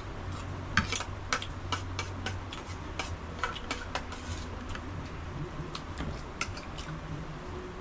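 Metal forks and spoons clinking and scraping against plates and a small sauce bowl while eating, in many sharp, irregular clicks.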